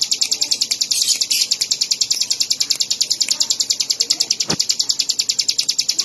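Bar-winged prinia (ciblek) singing one long unbroken run of rapid, high chirping notes, about ten a second.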